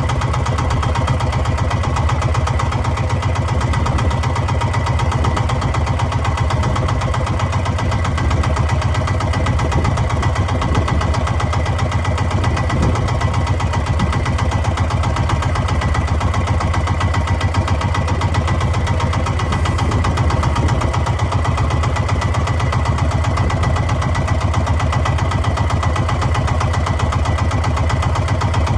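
Fishing boat's engine running steadily at an even speed, with a constant low pulsing throb and a faint steady whine above it.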